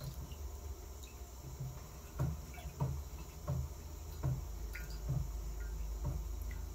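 1/4-scale Rider-Ericsson hot-air pumping engine turning over slowly under the burner's heat, with about six soft knocks from about two seconds in, each a little further apart than the last, over a steady low hum. It is just beginning to run and pump water on its first firing.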